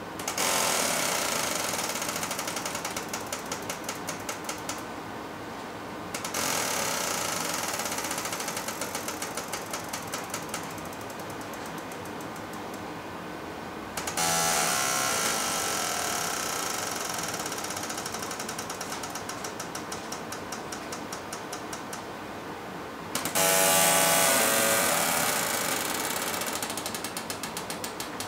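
Pneumatic control valves of a robot arm lifting a 5.0 kg load, clicking rapidly with a hiss of air, in four bursts as the arm moves. Each burst starts loud and fades over several seconds.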